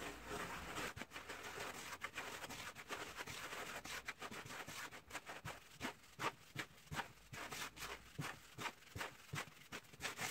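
Hands rubbing semolina and flour together with melted clarified butter and oil in a wooden bowl, working the fat into the grains. It starts as a faint even rustle and turns, about four seconds in, into quick scratchy strokes of roughly two or three a second.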